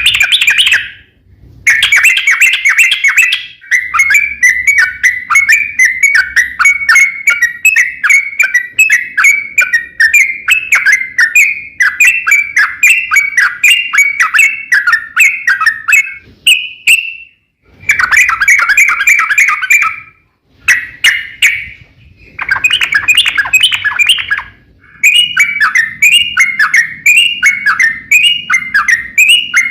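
Yellow-vented bulbul (trucukan) singing long runs of quick repeated notes, phrase after phrase, with a few short breaks.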